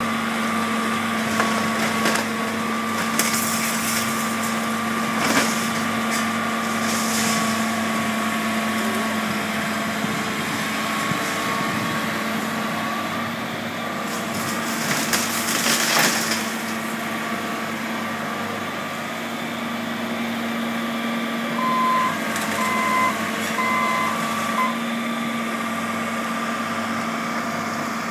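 John Deere 790ELC excavator's diesel engine running steadily while it crunches through the wood and debris of a demolished house, with several crashes, the loudest a little past halfway. Later a backup alarm beeps four times.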